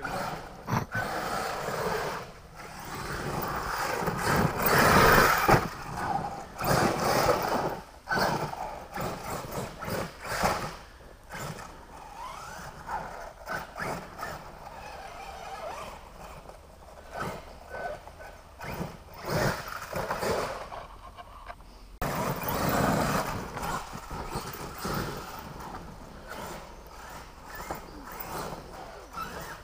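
Radio-controlled off-road truck's motor revving in repeated bursts as it is driven over a dirt track, falling away between runs.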